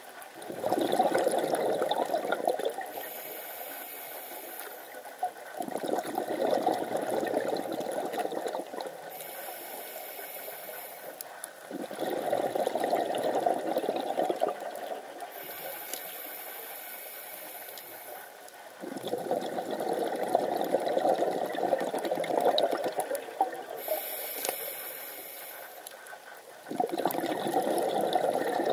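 Scuba diver breathing through a regulator underwater: a short hiss on each inhale and a rush of bubbles on each exhale, repeating about every six seconds, with five exhales in all.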